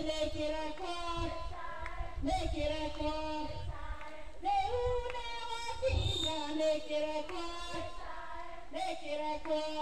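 A group of voices singing together, with held, gliding notes and no clear instrumental backing.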